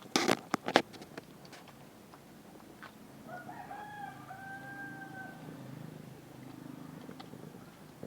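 A quick run of sharp, loud clicks or knocks in the first second. About three seconds in comes a drawn-out two-part animal call on a steady pitch, lasting about two seconds.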